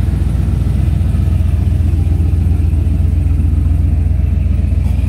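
A car engine idling, a steady, fast-pulsing rumble.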